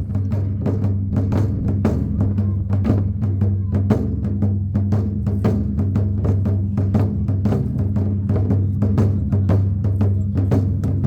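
Festival drumming: rapid, continuous drum strikes with sharp wooden clicks mixed in, over a steady low hum.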